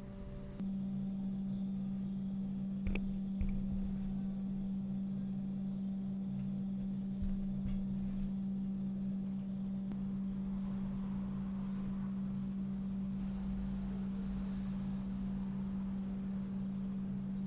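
A steady low electrical or mechanical hum with a constant pitch, starting about half a second in, with a few faint light knocks over it.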